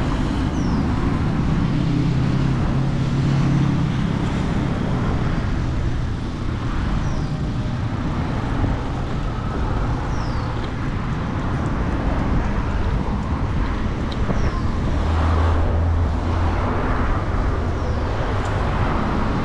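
Steady road traffic noise of cars going by on the street alongside, heard from a moving bicycle, with an engine hum swelling twice as vehicles pass.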